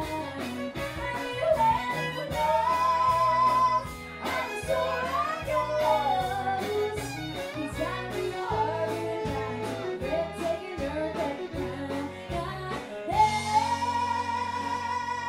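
A woman singing into a microphone over a live backing band with guitar. About thirteen seconds in she slides up into one long held high note with vibrato.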